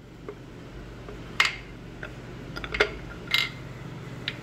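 A handful of sharp metallic clinks and taps, a second or so apart, as a steel connecting rod cap and its bearing shell are worked loose from the crankshaft of a Chevy 305 V8.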